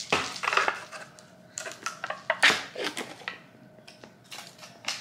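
Several short crunching, rustling handling noises, each a brief noisy burst with pauses between them, made while working with the cake.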